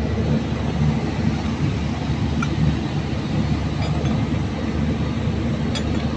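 A steady low rumble, with a few faint metallic clicks.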